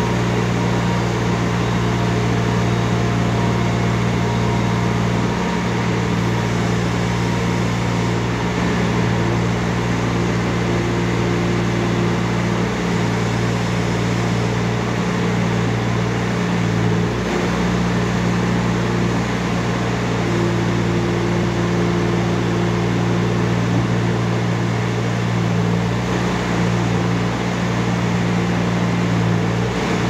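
Diesel engine of a 2015 Bobcat S510 skid steer running at a steady speed while its hydraulic loader arms raise and lower the bucket. The hum holds even throughout, with a few brief dips.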